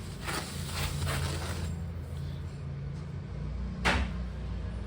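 Plastic packaging rustling briefly as a boxed motorcycle exhaust end can is unwrapped and handled, then a single sharp knock near the end, over a steady low hum.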